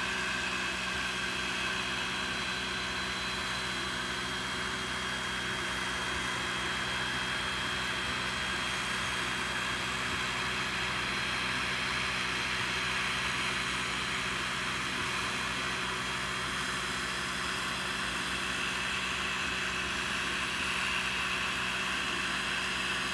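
Creality Falcon 2 22 W diode laser engraver running a cut, its built-in air-assist compressor blowing on the work: a steady whir and hiss with a few steady tones.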